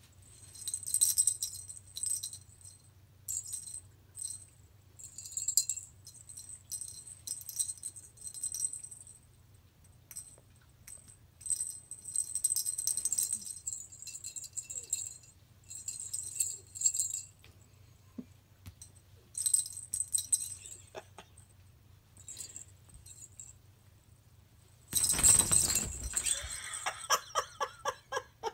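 Small jingle-bell ball toy hanging from a cat play gym, jingling and rattling in short bursts as a cat bats it. Near the end there is one loud clatter, followed by a quick run of ticks that die away.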